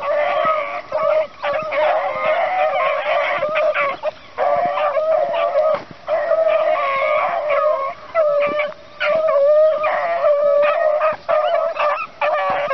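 A pack of beagles baying, giving long howling notes that overlap and break off with short gaps. It is the hounds' cry while they run a rabbit.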